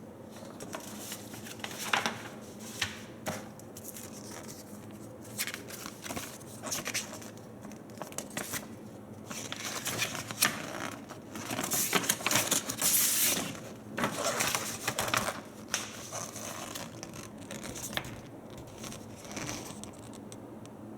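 Packaging being handled and opened by hand: irregular crinkling, rustling and tearing of wrapping, with a few sharp crackles. The busiest, loudest stretch comes about twelve to thirteen seconds in.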